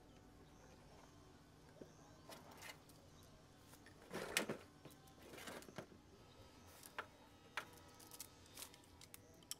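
Light handling noises from marking tools on a corrugated metal roofing sheet: a short scraping rustle about four seconds in, then a few sharp clicks and taps near the end.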